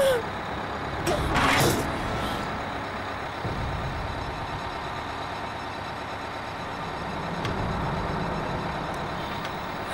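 A bus engine idling with a low, steady rumble; about a second in, a loud rushing hiss rises and dies away within a second.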